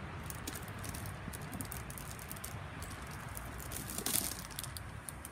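Plastic packaging rustling and crinkling as tool accessories are unpacked by hand, with scattered sharp crackles and a louder crinkle about four seconds in.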